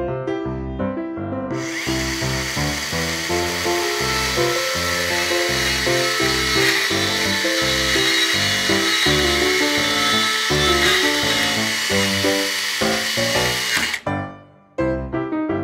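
Miniature chainsaw running and cutting through small wooden blocks, starting about a second and a half in and cutting off suddenly near the end. Keyboard music with short, bouncy notes plays throughout.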